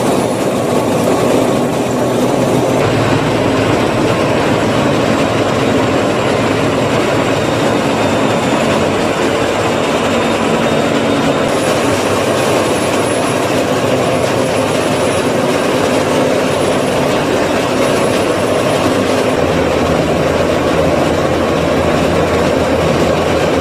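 Krone self-unloading forage wagon discharging fresh-cut grass: a loud, steady mechanical rattle and whir from its conveyor and discharge rollers, with a low drone underneath. The sound shifts slightly a few times.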